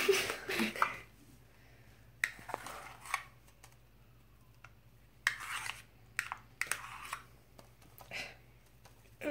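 Plastic spoon scraping thick shaving cream out of a plastic measuring cup into a plastic bowl. It comes as short, separate scrapes with a few light clicks of spoon on cup.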